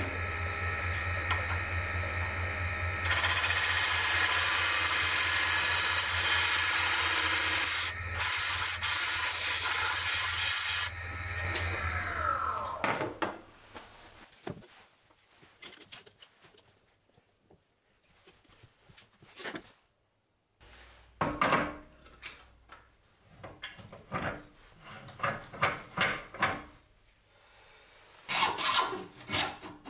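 Record Power DML320 wood lathe running with a mahogany blank spinning, a steady motor hum and whine; from about 3 to 11 seconds a tool works the spinning wood with a loud scraping hiss. The motor then winds down with a falling whine, and the rest is quiet clicks and knocks of hands handling the lathe.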